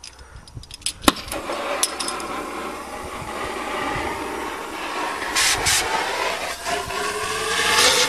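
Oxy-fuel cutting torch: a few faint clicks, then a sharp pop about a second in as it lights, followed by a steady hiss as the flame burns into the backhoe's rear axle housing to cut out the old wheel bearing. A whistling tone joins about seven seconds in.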